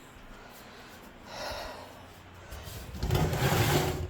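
Handling noises: a soft rub about a second and a half in, then a louder rubbing, shuffling noise lasting about a second near the end, as things are moved about.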